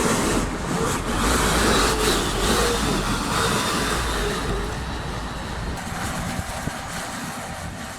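Tractor working a power harrow across a field, a steady mechanical noise with a low rumble that drops away about six seconds in as the sound fades.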